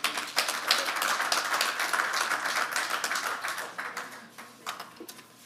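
A small audience applauding. The clapping dies away after about four seconds, leaving a few last claps.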